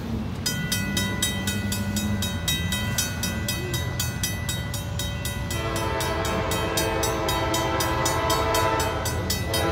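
Level crossing warning bell dinging rapidly and steadily. About five and a half seconds in, an approaching freight locomotive's air horn sounds one long chord of several notes, stopping about four seconds later.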